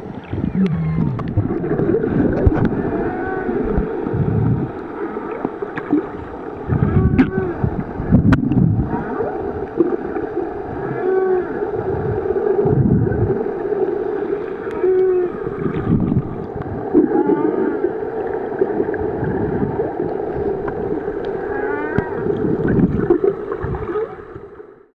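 Whale song heard underwater: a continuous run of low moans and groans, many sliding in pitch, with short rising-and-falling chirps above them. It cuts off abruptly near the end.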